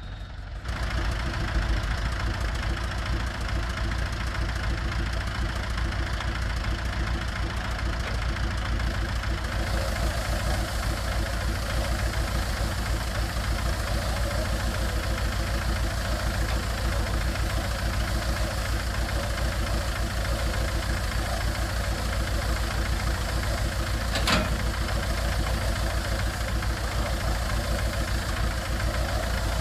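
Small tractor's diesel engine running steadily with a fast, even beat, powering a round-bale wrapper as it wraps a hay bale in film. A single sharp knock about 24 seconds in.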